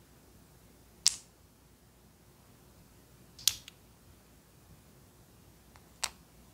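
Three separate sharp clicks of small hard-plastic miniature pieces being handled and clicked together. The loudest comes midway, when a tiny blue lid goes onto a clear plastic bowl.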